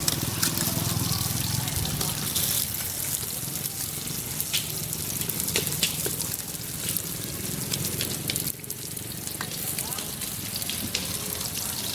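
Food frying in hot oil: a steady sizzle with many scattered pops and crackles.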